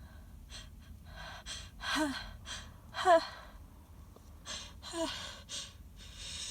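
A woman's run of short, breathy gasps and hitching inhalations, some with a voiced catch, the loudest about three seconds in. These are the teasing build-up to a sneeze that will not yet come out.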